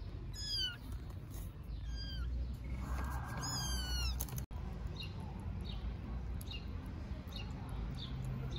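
Kittens meowing: three high mews in the first half, each falling in pitch, the last one longer. They sound over a steady low background rumble. Faint short high chirps follow in the second half.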